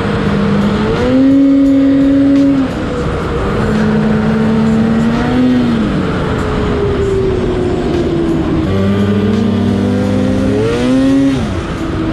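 Polaris Switchback Assault two-stroke snowmobile engine running while riding, its revs rising and falling several times as the throttle is worked, with a quick rev-up and drop near the end.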